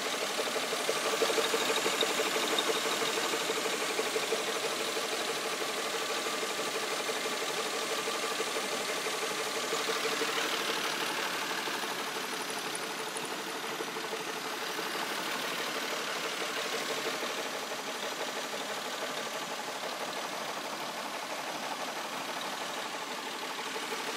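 2000 Mazda 626's 2.5-litre DOHC V6 engine idling steadily.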